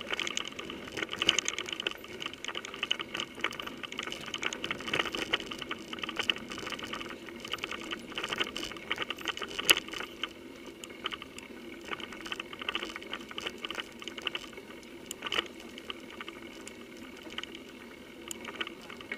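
Mountain bike rattling and clattering over a rough, leaf-covered trail, heard through a handlebar-mounted camera, so the rattle comes up through the bars. A fast, continuous rattle with frequent sharp knocks, the hardest about ten seconds in.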